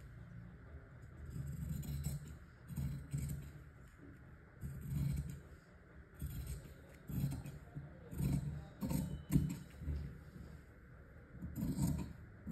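Tailor's scissors cutting through blouse fabric on a table in a string of irregular snips, roughly one a second.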